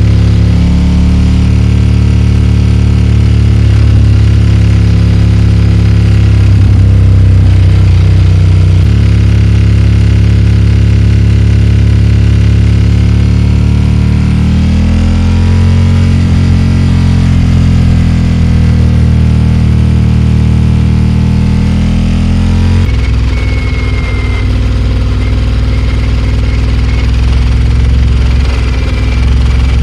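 Ducati XDiavel S's 1262 cc V-twin with a full Termignoni exhaust running under way, heard from on board the bike. Its note drops in pitch about a third of the way in and again about three quarters in, with a rise and fall in between.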